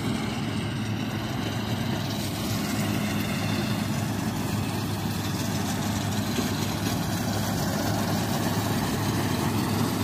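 The 88 HP engine of a Gatra GCH-858 combine harvester running steadily, a continuous low, even hum.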